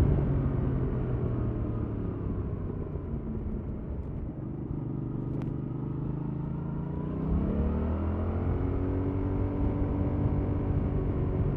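A 2021 Yamaha MT-07's 689 cc parallel-twin engine running through its stock exhaust while riding. The engine note eases and slows over the first half, with a single click about five seconds in, then climbs and grows louder as the bike accelerates about seven seconds in, holding a steady higher note after that.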